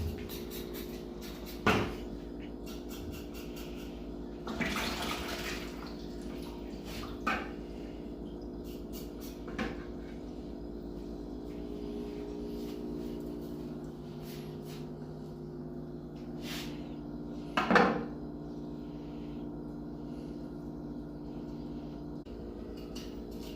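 A butcher cleaning pig's trotters: a few scattered knocks and scrapes, the loudest near the end, and a short rush of noise about five seconds in, over a steady low machine hum.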